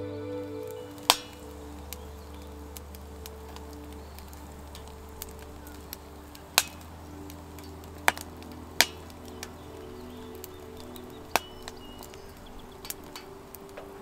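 Soft background music of held, slowly changing notes over a low bass note. About five sharp knocks cut through it at irregular intervals; they are the loudest sounds.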